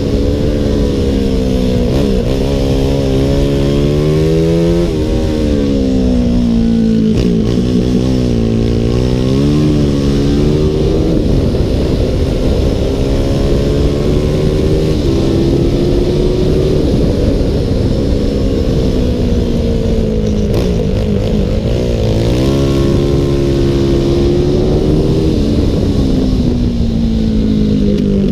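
Onboard sound of a stock CG 300 class race motorcycle's engine under hard throttle, its pitch climbing and then dropping back again and again as it runs up through the revs and rolls off, with steady wind rush on the microphone.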